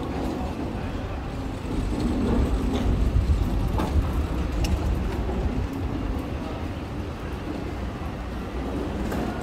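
City street background noise: a steady low rumble of traffic, with a few faint clicks.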